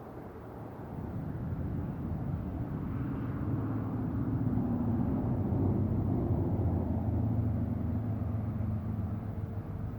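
A motor vehicle driving past: a low engine hum with tyre noise that swells to its loudest around halfway, then fades away.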